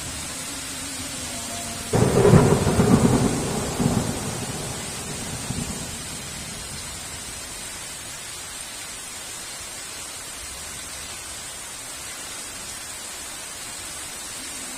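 Thunderstorm: steady heavy rain hiss, broken about two seconds in by a sudden loud thunderclap that rumbles for a couple of seconds and fades away, leaving the rain alone.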